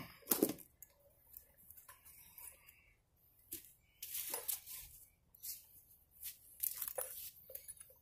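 Irregular rustling and light clinking of a person getting up and walking off through long grass, with tools rattling in a tool belt.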